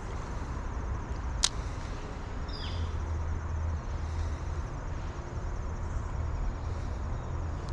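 Steady outdoor rumble and hiss, with one sharp click about a second and a half in and a short high chirp a second later.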